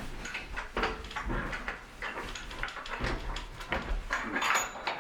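Irregular knocks and clatter of wooden loom parts being handled and set down, with a few dull thuds.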